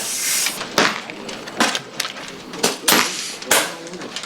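Air rifles firing along a benchrest competition line: about six sharp, short cracks at irregular intervals, some close together.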